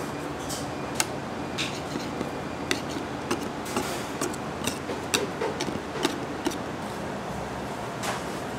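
Irregular light clicks and taps of cake-decorating tools being handled, about a dozen, over a steady hiss of room noise.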